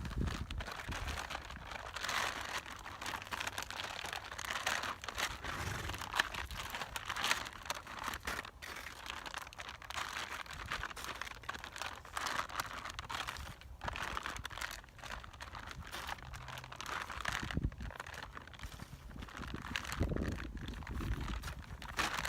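A feed sack crinkling and rustling irregularly as it is swung and rubbed around a horse, with scattered crackles.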